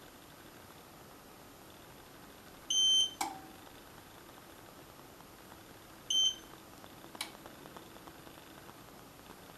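Xiaomi Mi Smart Space Heater S's control unit beeps as it takes a command from the phone app, a short high beep each time, followed by a sharp click. This happens twice, about three seconds apart, as the heater is switched off and then back on; faint light ticks follow the second click.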